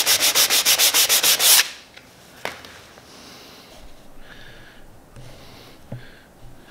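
Hand sanding a plywood corner with a folded sheet of 220-grit sandpaper: quick back-and-forth strokes, about eight a second, that stop about one and a half seconds in. After that there are only a couple of faint knocks.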